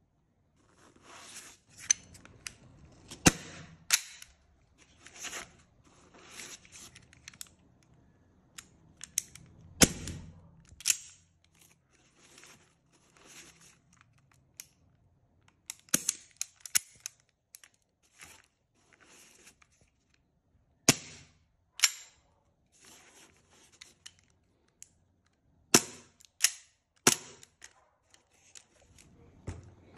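Airsoft pistols firing single shots, a dozen or so spread out with pauses, each a sharp crack. Between the shots come softer rustling and clacks of the replica pistols being handled and taken from a foam-lined case.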